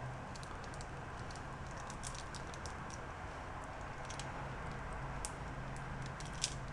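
Faint, irregular clicks and light taps from a hand-lever grease gun being pumped to squirt out grease, over a steady low hum.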